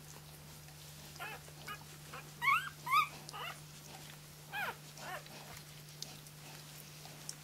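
Three-day-old flat-coated retriever puppy crying: a run of short, high squeaks that rise and fall in pitch. The two loudest come about half a second apart, near the middle.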